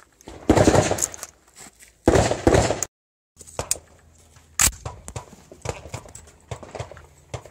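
Two loud bursts of scuffing, rustling noise, each lasting about a second. After a short break, an AR-style carbine is handled and loaded: light clicks, then one sharp metallic click about four and a half seconds in.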